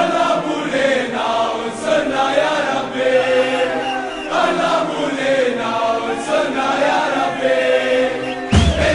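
Football ultras' chant: a large group of men singing a terrace song together in unison. Just before the end a deep drum beat comes in under the singing.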